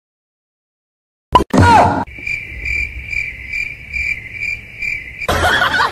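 Cricket chirping: a steady, high, repeated chirp at about two a second. Before it, after a second of silence, comes a sharp knock and a short loud burst that falls in pitch. A loud rushing noise cuts in near the end.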